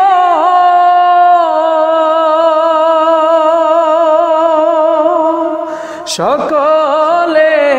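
A man singing a Bengali Islamic nasheed, holding one long note with a gentle vibrato for about six seconds. The note fades, a short click sounds, and a new sung phrase begins with a sliding pitch near the end.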